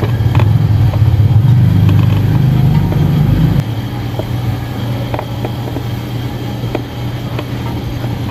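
A motor vehicle engine running with a steady low hum that drops off about three and a half seconds in. Light metallic clicks sound over it as brake pads and caliper parts are handled.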